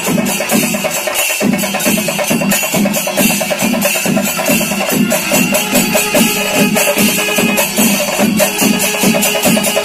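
Rhythmic percussion music: a steady beat of about two to three strokes a second over a constant high rattle.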